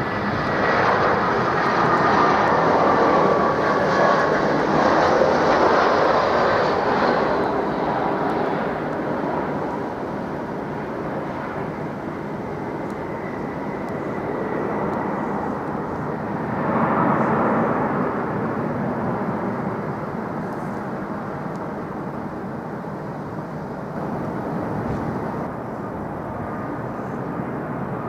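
Jet airliner passing low on approach: a loud rush of engine noise with a thin whine that dips slightly in pitch, peaking in the first few seconds and fading by about nine seconds in. A second, shorter swell of jet noise comes about seventeen seconds in.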